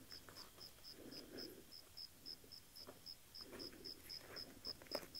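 Gloved hands pushing loose soil back into a planting hole, soft scraping rustles in a few short spells. Behind them a cricket chirps steadily, about four short high chirps a second.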